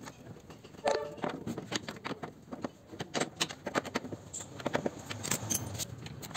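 Socket wrench tightening a nut on a scooter's steel body: an irregular run of sharp metallic clicks and clinks, several a second, starting about a second in.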